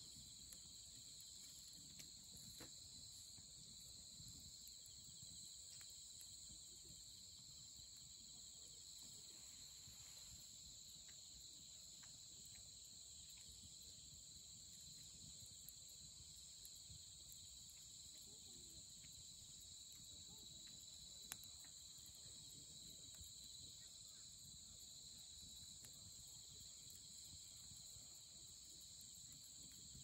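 A steady chorus of night insects chirping, with burning firewood crackling in scattered small pops and one sharper pop about two-thirds of the way through.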